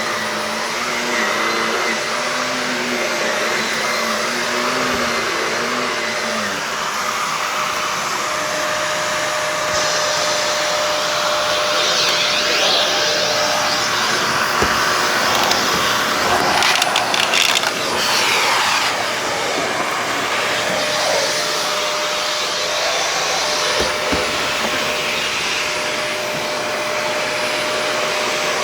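Shark vacuum cleaner running steadily over an old carpet, with a constant whine. About two-thirds of the way through there is a short burst of clicks and rattling, the loudest moment, as debris is sucked up.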